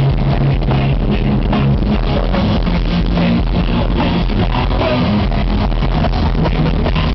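Heavy metal band playing live with electric guitars and drum kit, heard from the crowd on a camera microphone that is overloaded, so the music comes through distorted and saturated.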